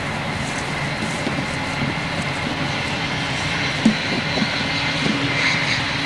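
A football kicked on grass: one short, sharp thud about four seconds in, with a couple of lighter knocks after it, over a steady background rumble.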